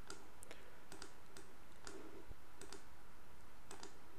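Computer mouse clicking: about ten short sharp clicks, some in quick pairs, over a faint steady hiss.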